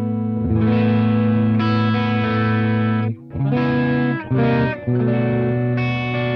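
Electric guitar strumming sustained chords through the Mooer Red Truck multi-effects pedal's Pure Boost with its bass control turned up. After about three seconds the chords turn shorter, with brief breaks between them.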